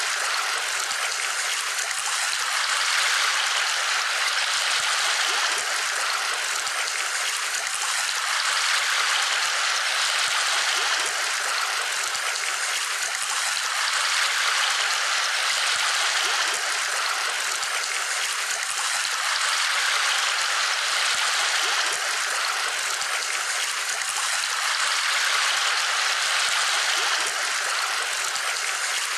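Steady rushing sound of flowing water, like a stream, swelling gently every few seconds.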